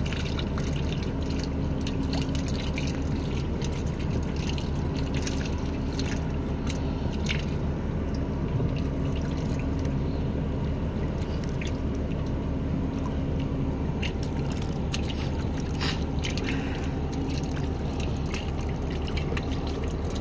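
Water dripping and splashing lightly beside a small wooden boat, with scattered small clicks. A steady low hum runs underneath throughout.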